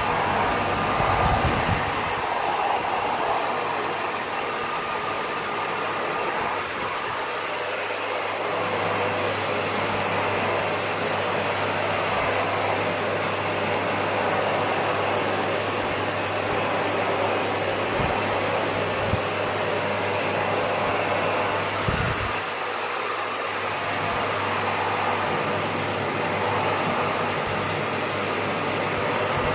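Vacuum cleaner running steadily with a constant hum, with a few brief low bumps.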